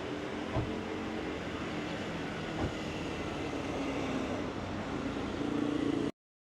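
Steady outdoor street ambience with a low, vehicle-like rumble and two brief knocks, cutting off abruptly about six seconds in.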